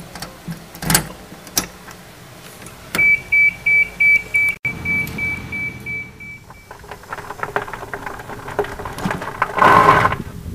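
Electric golf cart switched on with a couple of clicks from the key, then its warning beeper sounds a rapid string of high beeps for about three and a half seconds. The cart then runs and rolls, with a louder burst of noise just before the end.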